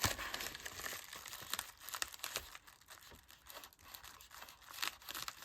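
Packaging being handled, crinkling and tearing in irregular crackles, loudest at the start and again near the end.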